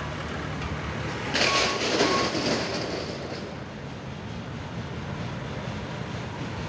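Darjeeling Himalayan Railway toy train running with a steady low hum, and a louder hiss between about one and three and a half seconds in, with two short high beeps in it.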